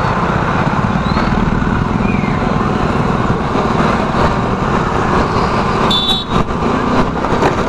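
Steady rush of town traffic and wind while riding a slow electric bike, whose motor adds little sound of its own; a short high-pitched beep about six seconds in.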